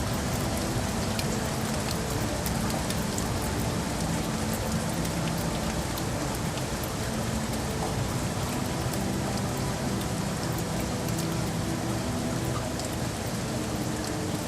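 Steady rain falling on hard surfaces, an even hiss dotted with many small, sharp drop ticks.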